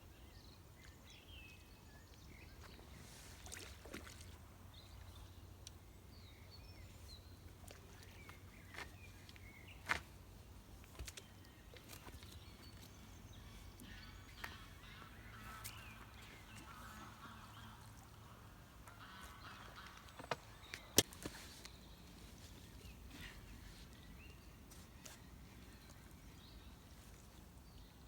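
Faint lakeside ambience with waterfowl calling in the distance, the calls busiest past the middle, and a few sharp clicks, the loudest about ten and twenty-one seconds in.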